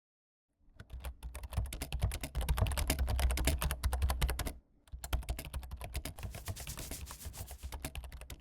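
Rapid run of clicks like keyboard typing over a low rumble, in two stretches with a short break about halfway.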